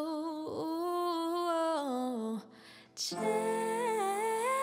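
A woman sings a long held line over upright piano chords, her pitch wavering in small runs before sliding down about two seconds in. After an audible breath she starts a second phrase about three seconds in.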